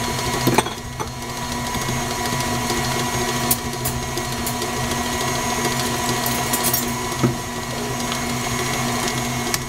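KitchenAid stand mixer's motor running steadily, its beater creaming butter, peanut butter and sugar in a steel bowl, with a few faint clicks along the way.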